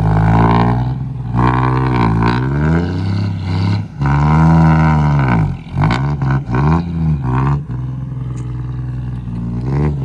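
Loaded truck's engine revving up and down again and again as its drive wheels spin on rain-wet ground, then settling into a steadier, lower run in the last couple of seconds.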